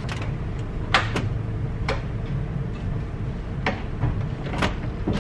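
A steady low rumble with about six sharp clicks and knocks scattered through it, the loudest about a second in.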